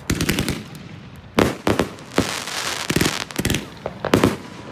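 Consumer fireworks, cakes sending up shots that burst overhead. A quick string of sharp bangs opens, then loud reports come about every half second, with a dense run of overlapping bursts around the middle.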